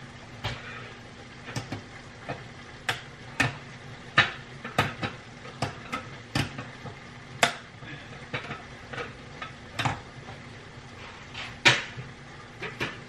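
Irregular sharp metal clinks and knocks, about one or two a second: a metal spoon stirring and tapping in a stainless steel pan of spaghetti, and a handheld can opener worked on a small tin can.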